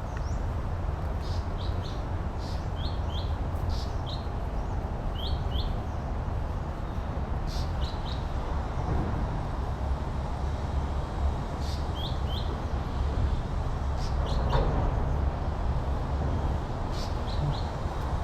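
Birds chirping in short high notes, often two in quick succession, every second or few, over a steady low rumble.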